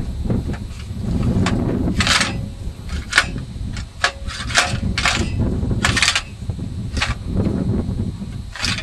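Sharp metal clinks and scrapes, about eight in all, from a sickle-bar mower's cutter bar as its knife is handled and worked along the guards during a blade change, over a steady low rumble.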